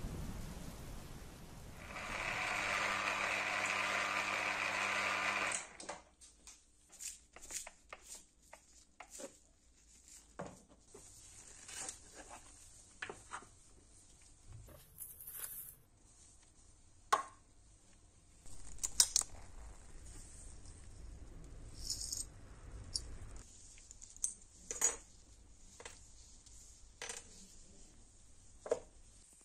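A power tool whirs steadily for a few seconds, then cuts off suddenly. Small steel razor parts and a plastic container lid are then handled on a wooden bench, with scattered light metallic clicks and clinks.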